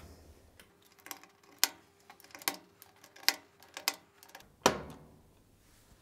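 Small plastic push buttons on an electric cooker's control panel being pressed and snapped back into place: a string of sharp, irregular clicks, about ten in all, the loudest one a little over four and a half seconds in.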